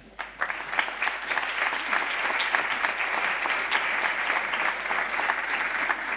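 Audience applauding steadily, a dense patter of many hands clapping that swells in just after the start and fades near the end.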